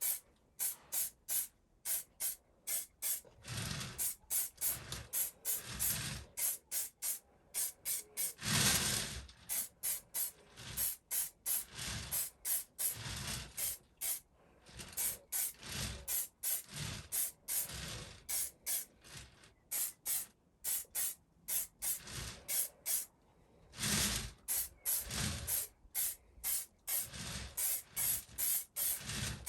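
Aerosol can of clear lacquer spraying in many short hissing bursts, with a few longer sprays held for about a second.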